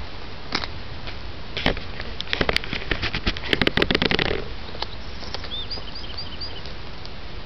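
Rustling and clicking of something being handled close to the microphone, loudest about two to four seconds in, then a small bird chirping four or five quick high notes.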